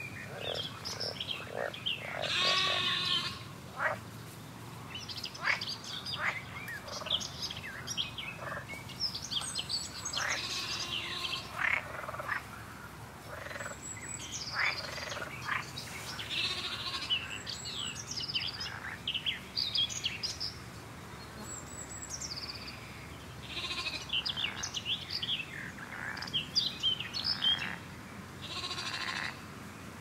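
Farmland ambience: frogs croaking, a robin and other birds singing in short chirps and trills, and sheep bleating now and then.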